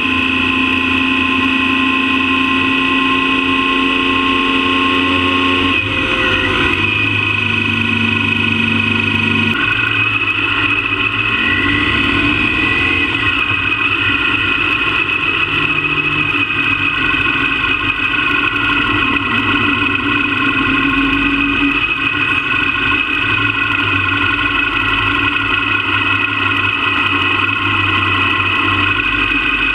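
Motorcycle engine running steadily while riding along a road. Its note shifts about six seconds in and again near ten seconds, then holds fairly even.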